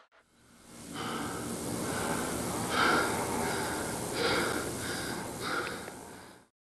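A young man breathing hard in a series of short, breathy gasps over camcorder tape hiss, starting about half a second in and cutting off suddenly near the end.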